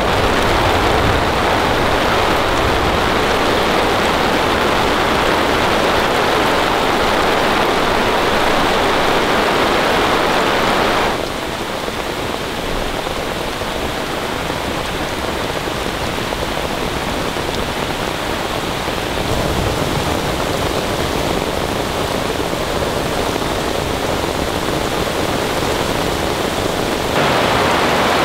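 Very heavy rain pouring down onto a camping tarp in a dense, steady hiss. It gets suddenly quieter about a third of the way in and suddenly louder again near the end.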